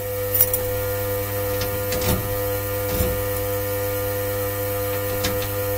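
A steady machine hum with several held tones, broken by a few light knocks and clicks about two, three and five seconds in.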